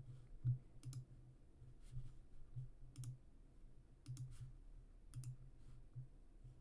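Faint, irregular clicking of a computer mouse and keys, about a dozen separate clicks, each with a soft low thud.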